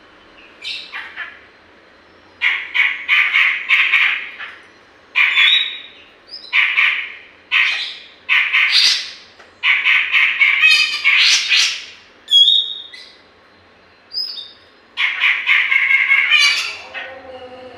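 Grey-cheeked bulbul (cucak jenggot) calling over and over in a series of scratchy, chattering phrases about a second long, with a few short clear whistled notes between them.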